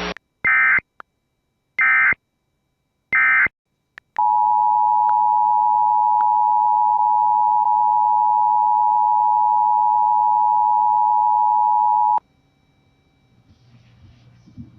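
Three short bursts of Emergency Alert System digital data tones. They are followed by the EAS two-tone attention signal, which holds steady for about eight seconds and then cuts off sharply.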